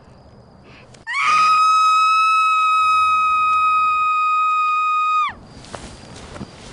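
A woman's shrill scream that rises quickly, then holds on one high pitch for about four seconds before cutting off suddenly.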